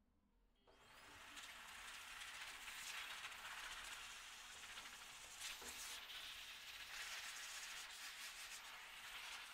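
Heavy-duty pet blow dryer switching on about a second in: its motor whine rises as it spins up, then settles into a steady rush of air.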